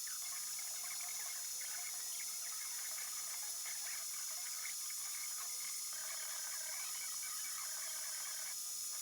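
3D printer's stepper motors chattering in quick, shifting chirps as the print head moves, sped up with the footage, over a steady high hiss.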